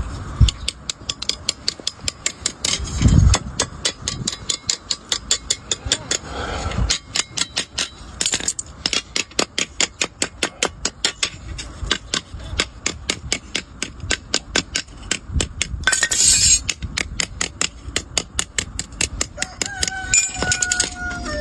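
Hammer striking sheet iron on an anvil in a steady run of sharp metallic blows, about four a second, with a couple of heavier, duller thumps in the first third, as the sheet is hand-forged into a cooking spatula.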